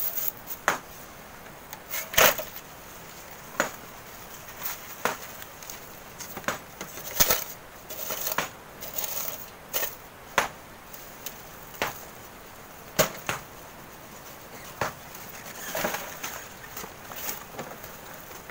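Hand tools digging into sand and gravel: sharp scrapes and knocks of hoe and shovel blades at irregular intervals, roughly one every second or so.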